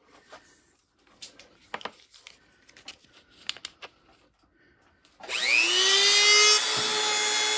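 A few light handling clicks and rustles, then about five seconds in an Apex Forge 1-amp rotary tool with a flex shaft is switched on at its top speed setting of 6. Its motor spins up with a quickly rising whine and settles into a steady, high, pretty quiet whine.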